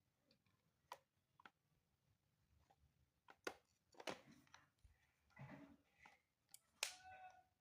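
A few faint, separate clicks and taps over near silence, the loudest near the middle and again near the end.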